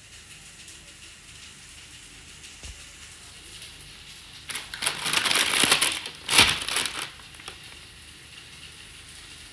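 A burst of crinkling from plastic packaging being handled, lasting about two and a half seconds, with a sharp click near its end, over a faint steady hiss of frying.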